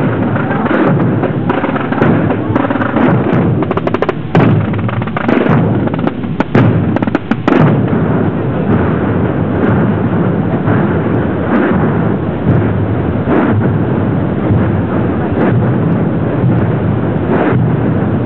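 Massed snare drums and bass drums (tambores and bombos) of a Holy Week procession drum corps beating continuously, a loud, dense drumming with no clear single beat.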